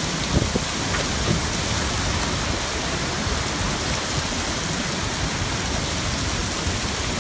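Hurricane-force wind and driving rain, a steady dense rush with the wind pounding low on the microphone. There is a brief thump about half a second in.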